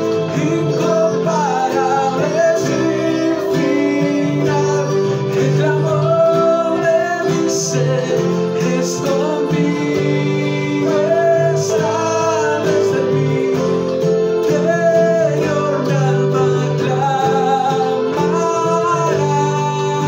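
A worship song performed live: a man singing to a strummed acoustic guitar, with an electronic keyboard holding chords underneath.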